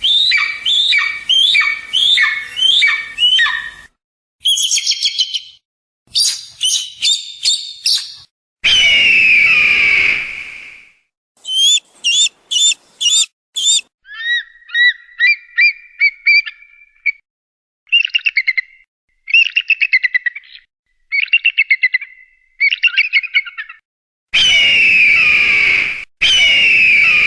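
A string of different eagle calls separated by short silent gaps: a run of about seven descending chirping whistles, quick repeated notes and chattering trills, and long screams, one about nine seconds in and two near the end.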